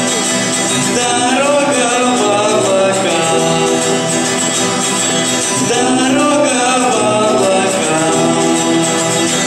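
A boy sings a song into a microphone, amplified, over strummed acoustic guitars.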